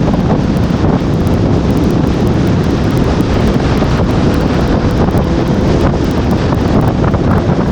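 Heavy wind buffeting on a GoPro Hero5 Black's built-in microphone, a loud, steady rumble that stays even throughout.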